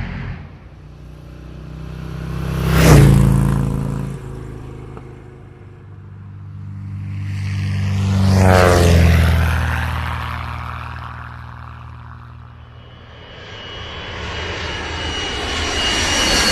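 Engine-driven vehicles passing by one after another, each swelling up and fading away: a quick pass about three seconds in, then a slower one around the middle whose engine pitch slides down as it goes by. Near the end another vehicle sound builds up, carrying high whining tones.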